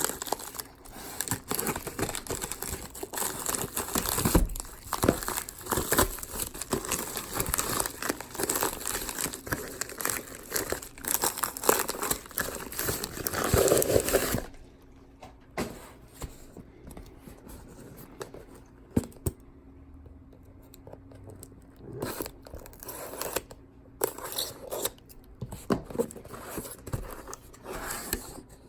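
A flat rate shipping envelope being torn open and its packaging crinkled and rustled. About halfway through the dense tearing stops, leaving quieter, scattered rustles and small handling clicks as the box inside is opened.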